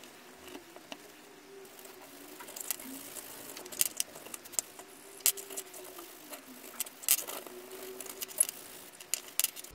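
Sharp little clicks and clinks of small metal parts being handled and wiped with a cloth, scattered irregularly and coming more often in the second half.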